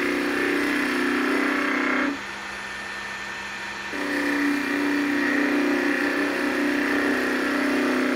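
Wood lathe spinning a magnolia blank while a gouge cuts into it near the bottle's neck, giving a steady pitched hum of tool on wood. The cut stops about two seconds in, leaving only the quieter running lathe, and starts again about two seconds later.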